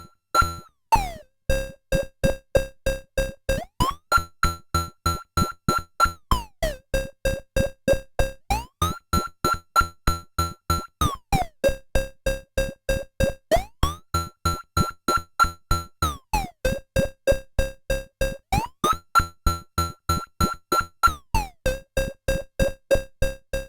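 EDP Wasp monophonic analogue synthesizer playing a fast run of short, plucky repeated notes, about four a second. The pitch jumps back and forth between a low and a high note every couple of seconds, sliding briefly between them.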